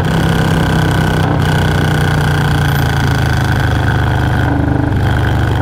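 Stage 2-tuned Milwaukee-Eight 117 V-twin of a Harley-Davidson Low Rider S running steadily under way, its note dropping slightly about two seconds in.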